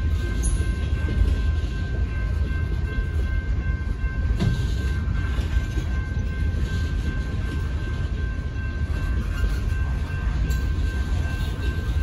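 Freight cars of a slow-moving train rolling over a grade crossing: a steady low rumble of steel wheels on rail. A steady high ringing tone sounds over it.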